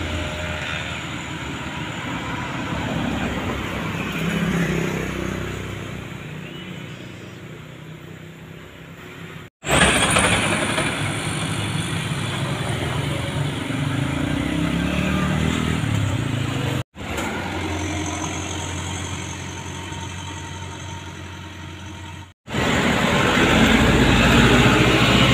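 Trucks, a pickup and motorcycles driving past close by on an uphill road, engines running under load, with tyre noise. The sound drops out for an instant three times, about 10, 17 and 22 seconds in, and picks up again louder after each break.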